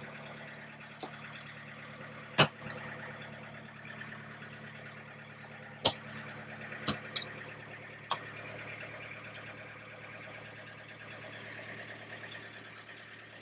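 A SiteMaster root-cutting tool chopping into soil and a thick tree root: several sharp strikes, the loudest about two and a half and six seconds in. Under them runs the steady hum of the backhoe's engine idling.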